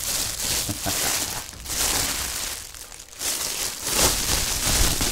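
Clear plastic wrapping crinkling and rustling in several bursts as it is pulled by hand off a replica axe, loudest near the end.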